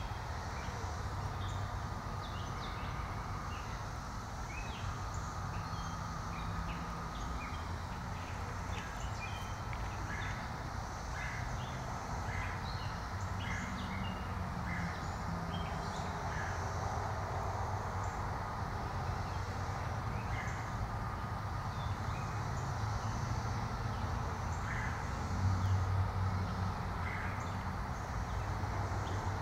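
Birds giving many short chirps and calls over a steady low rumble, which swells briefly a few seconds before the end.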